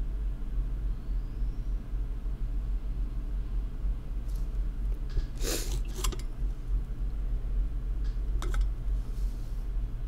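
A steady low electrical hum, with a few short, faint scratchy ticks from about the middle on. The ticks fit a soldering tool touching the board.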